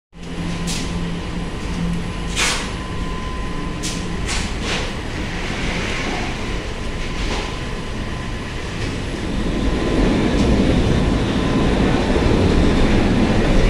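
Belt conveyor and line machinery running with a steady mechanical rumble and hum, while plastic bags are slapped down and handled on the belt: a few sharp slaps or clicks in the first five seconds, and louder rustling handling noise from about ten seconds in.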